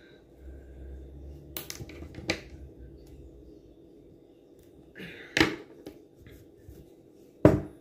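About four sharp clicks and snips as fishing tackle is handled: scissors trimming the fishing line after the knot and small metal terminal tackle tapping. The loudest click comes near the end.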